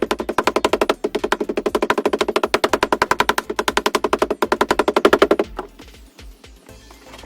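A rapid, even mechanical rattle of sharp strikes, about ten a second, that stops about five and a half seconds in, over background music.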